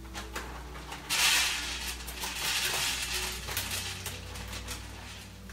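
Food sizzling in a hot pan on the stove: a sudden loud sizzle about a second in that dies down over the next two or three seconds.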